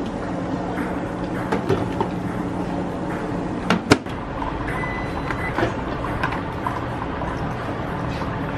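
A microwave oven running with a steady hum that stops just before its door latch clicks open, about four seconds in. A short high beep follows, then scattered light clicks and knocks of a plastic lunch container being handled.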